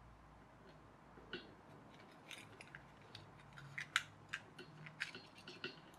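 Irregular series of small, sharp clicks and taps from handling small plastic toy parts and hand tools on a worktop, a dozen or so over a few seconds, the loudest about four seconds in.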